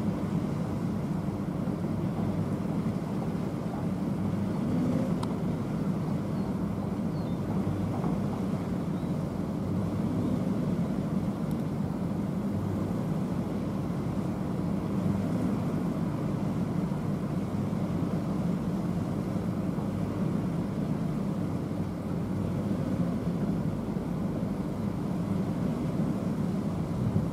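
Diesel engine of a wheeled excavator running with a steady low rumble.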